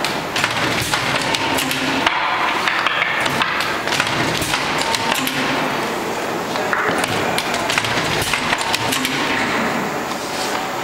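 Knocks and clatter of card covers and paper sheets being squared up and slid on the metal table of a double wire binding machine, over a steady background din with faint voices.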